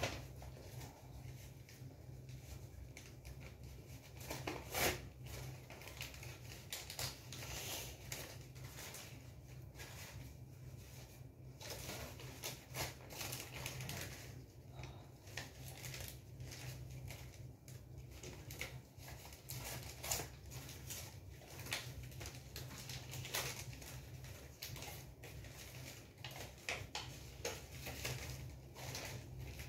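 Paper and thin plastic sheets rustling and crinkling as hands fold and handle them, in irregular crackles with a sharper crinkle about five seconds in, over a low steady hum.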